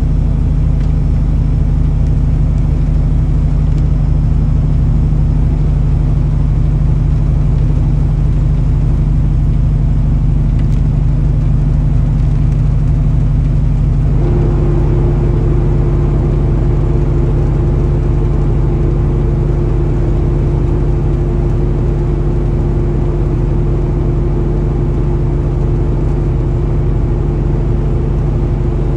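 Steady drone of a heavy truck's engine and tyres hissing on a rain-soaked road, heard from inside the cab. About halfway through, a steady tone joins in and holds.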